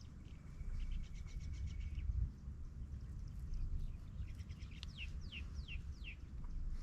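Birds calling over a steady low rumble: a rapid trill with a thin high tone in the first two seconds, then four quick downward-sweeping whistles near the end.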